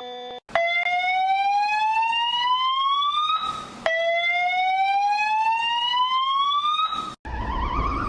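Synthesized emergency alert alarm tones. A steady electronic beep tone cuts off, then two slow rising sweeps follow, each lasting about three seconds and ending in a short burst of hiss. A warbling siren tone starts near the end.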